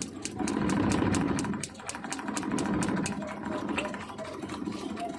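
Suzuki K6A three-cylinder engine running with a rapid, even snapping of sparks, about five to six a second, at an in-line coil tester on the third coil. The regular sparking shows that coil is firing.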